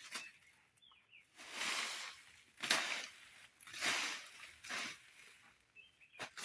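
Outdoor rustling, a hissy swish repeated roughly once a second, with two brief high chirps, one about a second in and one near the end.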